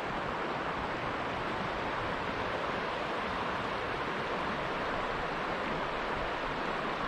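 The Ashtabula River's water flowing, a steady, even rush with no breaks.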